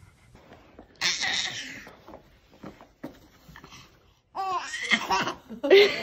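A baby laughing hard in several bursts: a breathy burst about a second in, then high-pitched squealing laughs near the end.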